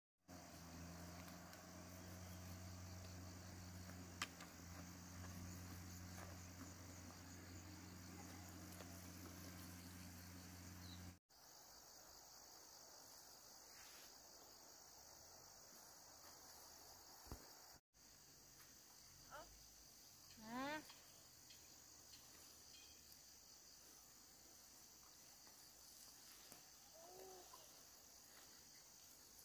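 Faint, steady chirring of insects, with a low hum under it for the first third. The sound drops out briefly twice.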